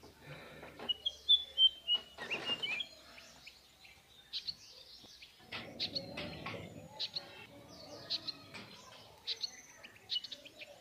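Small birds chirping in many short, high calls, with occasional rustling and handling noises about two seconds in and again around six seconds.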